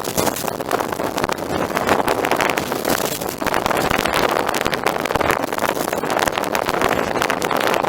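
Boat under way: a steady rush of wind and water noise, with gusts buffeting the microphone.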